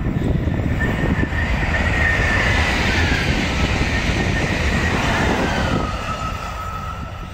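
High-speed electric train passing at speed: a broad rushing noise that swells through the middle, with a whine that drops in pitch as the train goes by. It eases off near the end.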